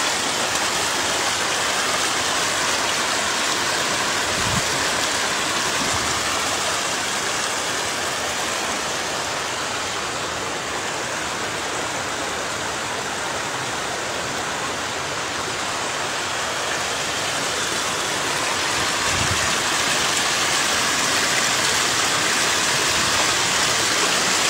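Floodwater flowing fast over a submerged road: a steady, even rush of moving water.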